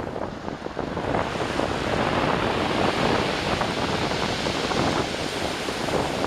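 Storm waves breaking and rushing on the shore in a continuous surging wash, with wind buffeting the microphone.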